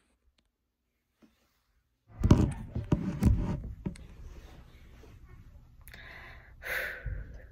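A phone being picked up and repositioned by hand. After about two seconds of silence come heavy bumps and rubbing on its microphone, loudest two to three seconds in, then lower handling noise and a short rustle near the end.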